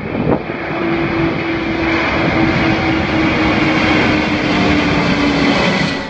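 Aircraft engines running steadily, a loud rushing noise with a steady hum through it, cutting off suddenly near the end.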